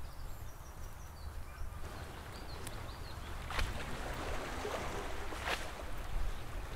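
Outdoor walking sounds: a few footsteps on a tarmac road over a steady low rumble, with faint bird chirps.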